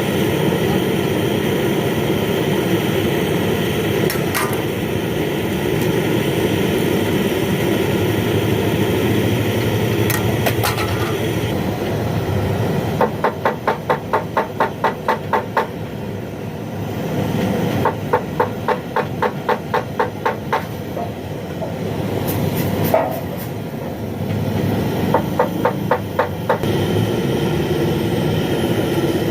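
Hammer tapping on the metal of a radiator tank in three quick runs of light, evenly spaced blows, about four a second, over a steady background noise.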